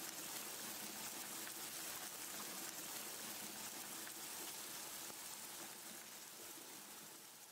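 A steady rushing hiss, water-like, that fades in at the start and slowly fades out near the end.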